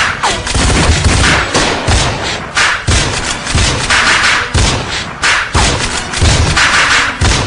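Dance-remix drum beat: heavy bass kicks under sharp hits that recur about every second and a half in a steady rhythm.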